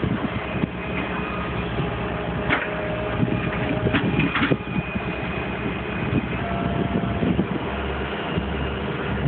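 Hitachi EX120 hydraulic excavator's diesel engine running steadily, with a faint whine that comes and goes and a few sharp knocks about two and a half and four seconds in.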